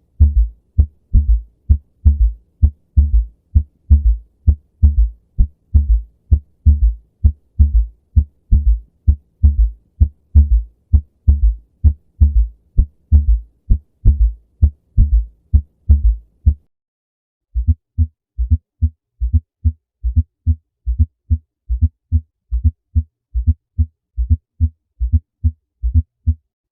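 Recorded heart sounds, as heard through a stethoscope: a regular train of low thumps, the lub-dub of successive heartbeats. After a brief silence about 17 seconds in, a second recording takes over, thinner in tone and with the beats a little closer together.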